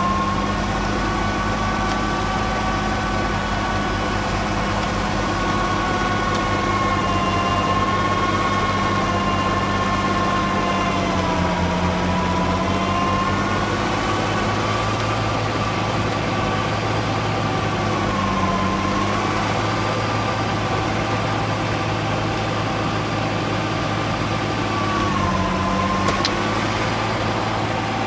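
Fendt tractor driving a Westa W900 snow blower into a snowbank, engine and blower running together as a steady drone with a whining tone. The pitch sags briefly three times, about a third of the way in, past halfway and near the end.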